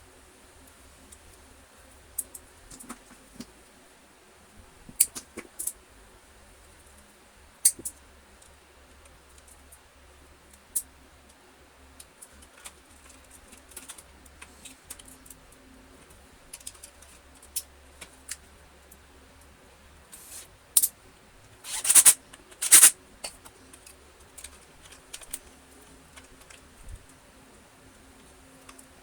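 Scattered small clicks and taps of hand tools and wires being handled while the vacuum's mains flex is stripped and soldered, with two louder short rasps about three-quarters of the way through. A faint steady hum runs underneath.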